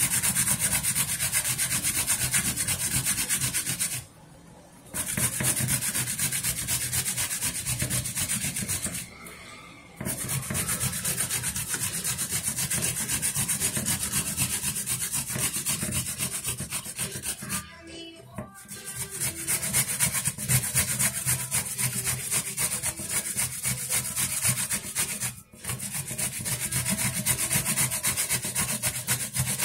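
Zucchini being grated on a flat stainless-steel hand grater: fast, even scraping strokes of the vegetable over the metal teeth, stopping briefly a few times.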